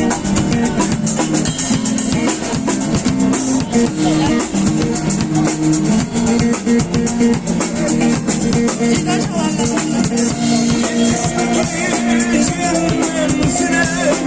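Street band playing an instrumental passage of a Turkish folk song: a plucked string melody over a shaker and drum beat.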